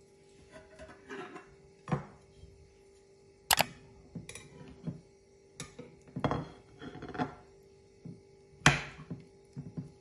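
A metal knife and slotted spatula knocking and scraping against a glass baking dish while a firm starch pudding is cut and a piece is lifted out: several sharp, separate clicks, loudest about three and a half seconds in and near the end.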